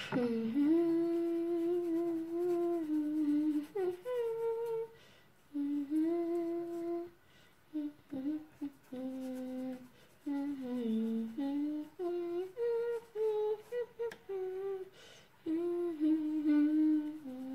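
A person humming a slow wordless tune: long held notes that step up and down in pitch, in phrases broken by short pauses.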